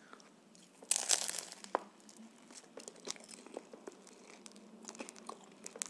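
A bite into a homemade chicken shawarma in toasted flatbread, with a loud burst of crunching and tearing about a second in, then close-up chewing with scattered crackles. The wrap is crisp: it crunches as it is bitten and chewed.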